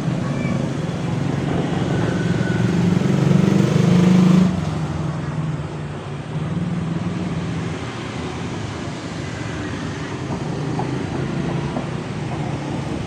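An engine running steadily with a low hum, loudest about four seconds in and then easing off a little.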